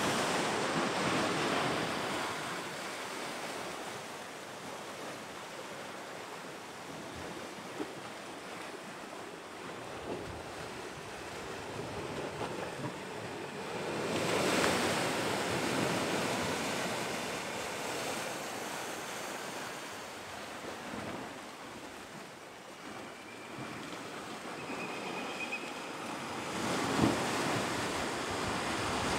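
Sea waves breaking and washing in among shoreline rocks, a steady rush that swells louder at the start, around the middle and again near the end.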